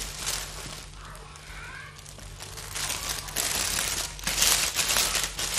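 A thin clear plastic bag and uninflated plastic balloons crinkling as they are handled and bagged, the rustling growing louder and busier about halfway through.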